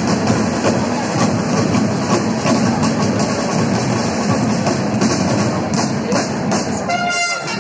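A large corps of costumed side drums (snare-type drums) playing together, a dense, continuous drumming. Near the end, a wind instrument comes in with held notes.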